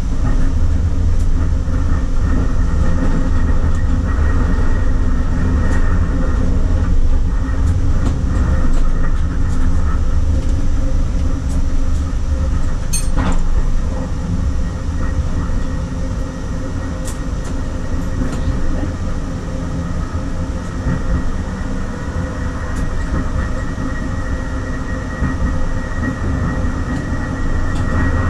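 SL95 tram running along the track between stops: a steady low rumble with a few steady tones over it, and a single sharp knock about halfway through. It runs a little quieter after the knock and picks up again near the end.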